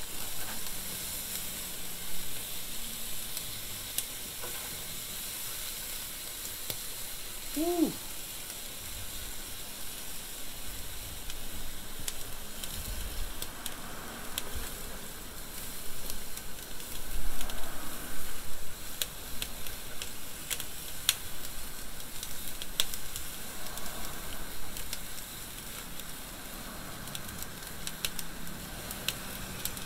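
Basting sauce of oil, beer and butter sizzling as it drips from a string mop onto the fire in a Pit Barrel Cooker, a steady hiss with many sharp pops. A short squeak about eight seconds in.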